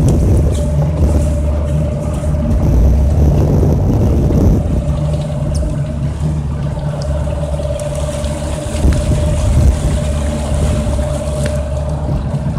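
Boat motor running at a steady pitch while the boat is underway, with wind noise on the microphone, rougher in the first few seconds.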